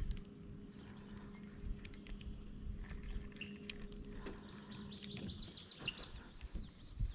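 Faint bird chirps, with a short rapid trill about four and a half seconds in, over scattered small clicks and a faint steady low hum that stops about five seconds in.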